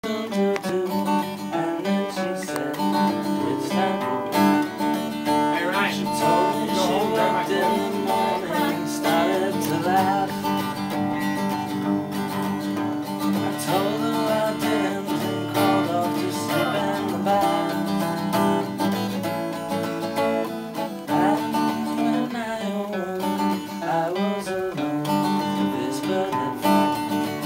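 Music played on acoustic guitar, with steady held notes and a moving melody line, cutting off suddenly at the end.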